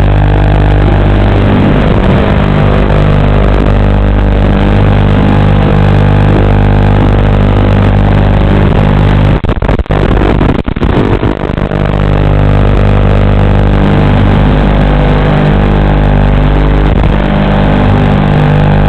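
Steady, loud electronic buzz on the audio channel of an analog FPV video link, holding one unchanging pitch. It breaks up and drops out briefly about halfway through as the radio signal weakens while the quadcopter skims low past bushes.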